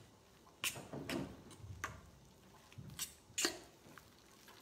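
A spoon clinking and knocking against a stainless steel stockpot while stirring chicken into a thick white sauce: a handful of faint, sharp clinks spread out, with a few soft thuds from the mixture.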